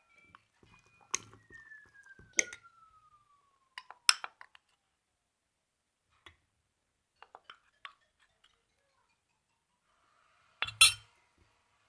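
A spoon clinking and scraping against a mug while flour is added and mixed into cake batter: a few sharp clinks, the loudest one near the end, with light taps between.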